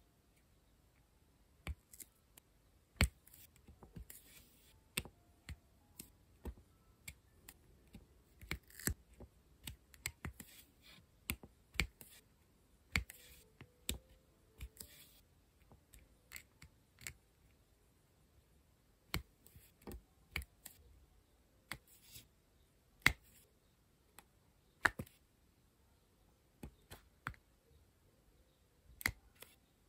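Diamond painting pen tapping diamond beads onto the sticky canvas: light, sharp clicks at an irregular pace, often one or two a second, with a few short pauses.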